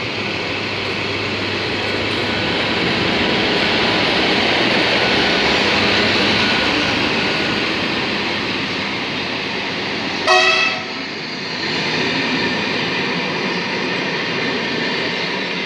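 A MÁV class V43 electric locomotive and its passenger carriages rolling past, a steady rumble and hiss of wheels on rail that swells and eases, with one short train horn blast about ten seconds in, the loudest moment.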